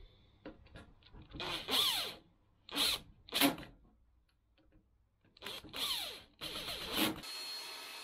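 Makita 18V cordless drill-driver driving screws into timber in several short bursts, its motor whine rising and falling with the trigger. Near the end a steady machine noise takes over.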